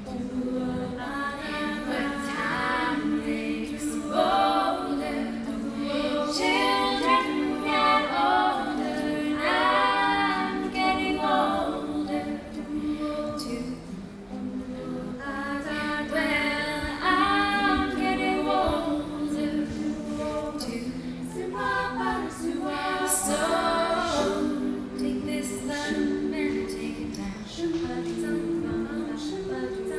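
All-female a cappella group singing: held backing chords from the group under a solo lead voice carrying the melody.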